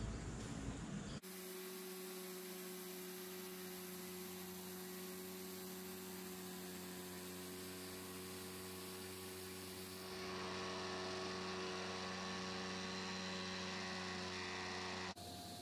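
A steady electric hum made of several even tones over a light hiss, growing slightly louder about ten seconds in.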